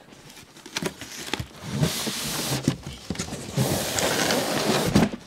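White foam packing scraping and rubbing against the cardboard box as a boxed Mac Pro tower is worked up and out of it, with knocks against the box sides. There are two longer stretches of scraping, in the middle and near the end, then a sharp knock.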